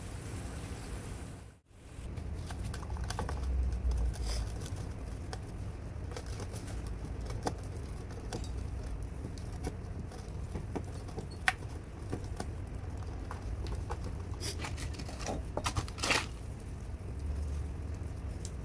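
Scattered soft taps and clicks of hands working a dough seal onto the rim of a steel cooking pot, over a steady low rumble.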